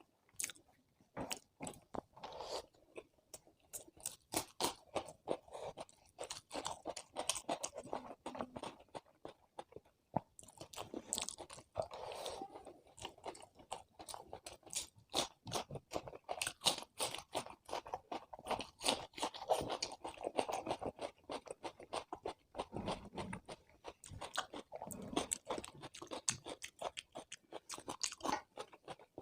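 Close-miked chewing and crunching of food in a person's mouth: irregular wet smacks and sharp crunchy clicks, several a second, with brief pauses between mouthfuls.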